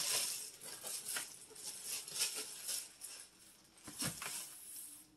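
Plastic bag of potatoes crinkling and rustling as it is handled and set aside, with a soft bump about four seconds in.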